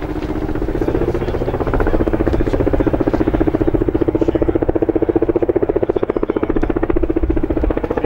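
Coaxial-rotor firefighting helicopter flying overhead, its rotor blades beating in a rapid, steady chop.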